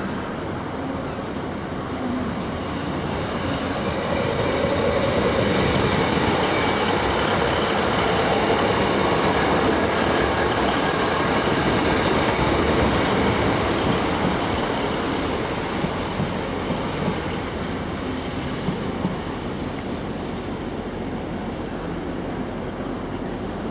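Class 150 Sprinter diesel multiple unit moving slowly past, its underfloor diesel engines and wheels on the rails growing louder as it draws level and then fading as it pulls away. A few sharp clicks come from the wheels over rail joints in the latter part.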